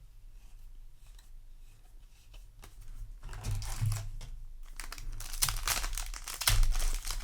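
Foil booster-pack wrapper crinkling and being torn open, with dense crackling that starts about three seconds in and builds toward the end.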